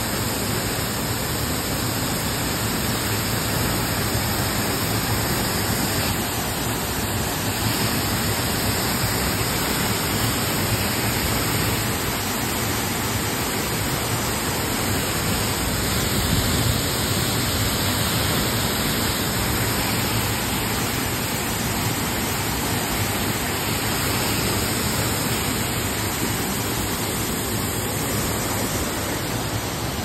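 Waterfall pouring over rock into a pool: a steady rush of falling water.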